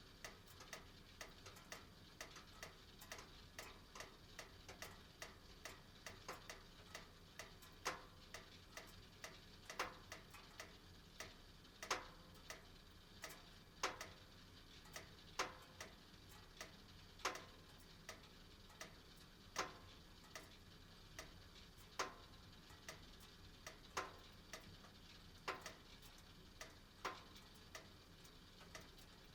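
Metal of a gas heating burner ticking and clicking irregularly as it expands with the heat, some clicks louder than others, over the faint steady sound of the flame.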